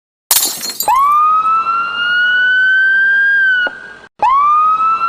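Siren tone that swoops up quickly and then keeps creeping higher, twice, each rise cut off abruptly, after a brief burst of noise near the start.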